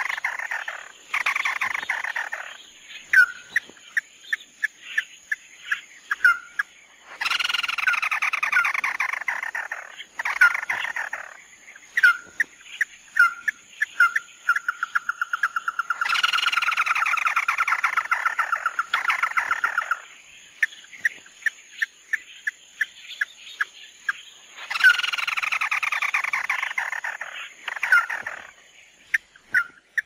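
Red-legged crake calling: loud, descending trilled phrases of a few seconds each, repeating about every nine seconds. Each is followed by a shorter trill, with single sharp notes and a quick run of notes in between.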